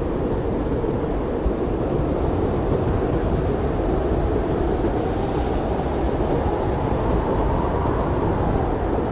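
Blizzard wind rushing steadily, a low, dense roar of wind noise with a faint hiss swelling briefly about halfway through.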